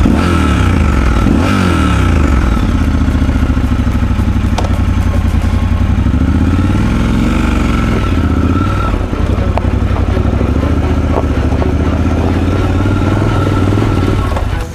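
Triumph Scrambler 1200 XE's 1200 cc parallel-twin engine pulling under load on a rough off-road climb, its engine speed rising and falling with the throttle. A few sharp clicks sound over it.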